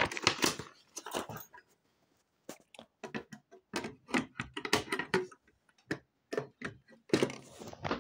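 Olympia SG1 office typewriter clicking as it is worked by hand: a run of sharp mechanical clicks, a pause of about a second, then a longer irregular run of clicks.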